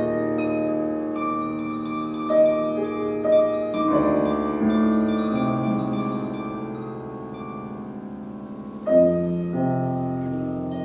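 Concert harp and grand piano playing an instrumental jazz passage together, plucked harp notes ringing over held piano chords. New notes are struck about two and a half seconds in, again around three and a half and four seconds, and once more near nine seconds, ringing on and fading between them.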